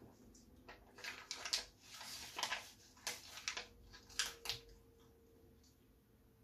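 A piece of printed paper photo being bitten off and chewed: a run of short, crackly paper rustles from about a second in until past the middle, then quiet.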